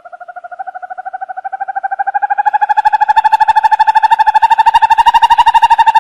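An owl giving a long, fast trill of about a dozen notes a second, rising slowly in pitch and swelling in loudness before cutting off near the end.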